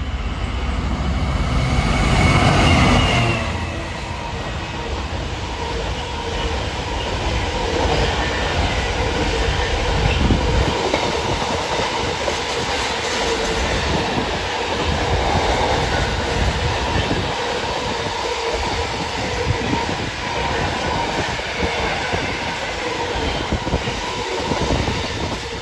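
Intermodal container freight train passing at speed. It is loudest in the first few seconds as the diesel locomotive goes by, then a long rake of loaded container wagons rumbles past with a steady clatter of wheels over the rails.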